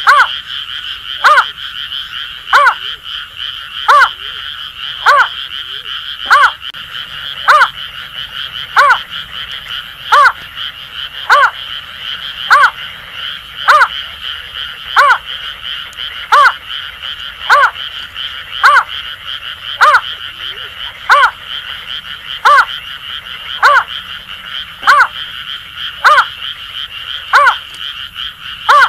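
Greater painted-snipe calls mixed with Asian grass frogs at night. A short note falling in pitch repeats steadily, about one every second and a quarter, over a continuous high frog chorus and quick regular clicks.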